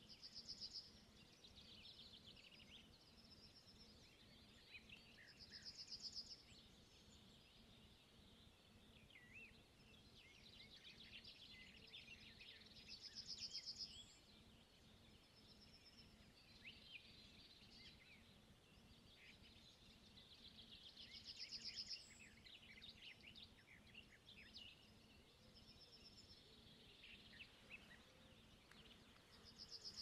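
Faint forest birdsong: a songbird repeats a short song about every seven or eight seconds, each one building to a bright trill at its end, amid scattered calls of other small birds over a faint low hum.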